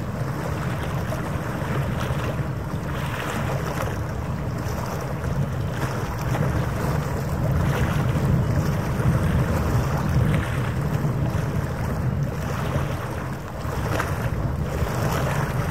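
Wind blowing across the microphone by open harbour water: a steady low rumble that swells and eases in gusts, with a faint steady hum beneath it.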